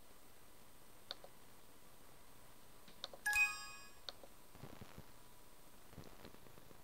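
Windows system alert chime, a single bright ringing ding of several tones about three seconds in, among a few faint computer mouse clicks.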